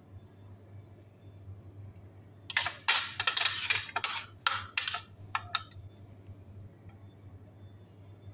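Metal spoon scraping against a ceramic plate while scooping minced-meat filling: a dense run of scrapes a couple of seconds in, then three short scrapes.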